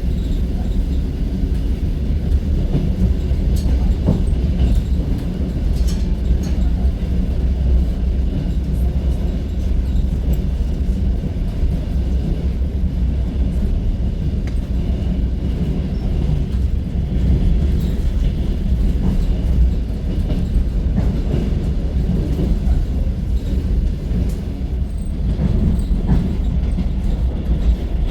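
Suburban electric train heard from inside the carriage while under way: the steady low rumble of wheels on the rails and running gear, with faint scattered clicks and rattles.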